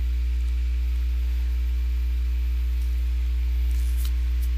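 Steady electrical hum, a low drone with a stack of higher overtones and faint hiss, with a couple of faint clicks near the end.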